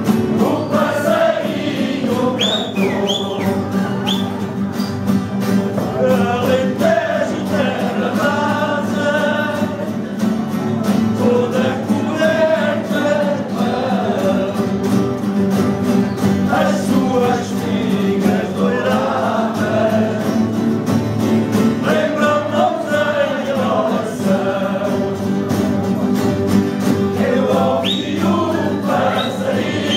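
An ensemble of acoustic guitars strummed together while a group of voices sings a Portuguese popular song.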